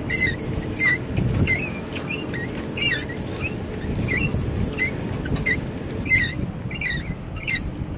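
A rope pulley squeaking over and over, short chirping squeaks about two a second, with wind rumbling on the microphone.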